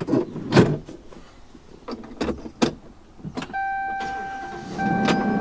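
A handful of short knocks and clunks on the pickup's body, then from about three and a half seconds in a steady electronic warning chime that repeats with short breaks about every second, over a low hum.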